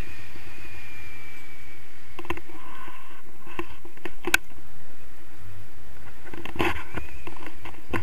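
Steady wind noise buffeting the camera microphone in paraglider flight, with a few sharp knocks about two, four and a half, and almost seven seconds in.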